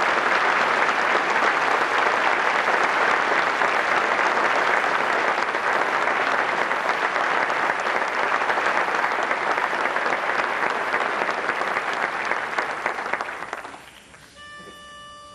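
Audience applauding in a dense, steady wash that dies away about a second and a half before the end. Just before the end a single steady pitched note is sounded, softer than the applause.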